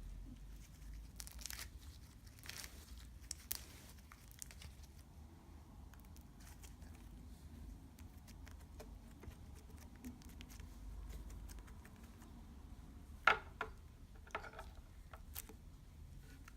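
Fingers poking and pressing slime: scattered soft, sticky crackles and small pops, the sharpest pop about thirteen seconds in, followed by a few more.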